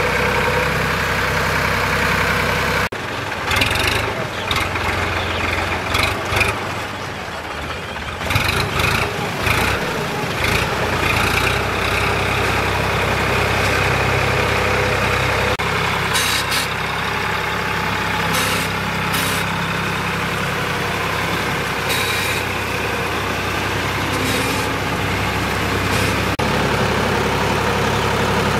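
Sonalika DI 47 RX tractor's diesel engine running steadily as the tractor works through flooded paddy mud, with scattered sharp clatter here and there.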